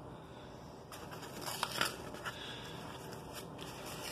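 Faint handling sounds around raw canned biscuit dough: a few soft clicks and rustles about a second and a half in, over quiet room tone.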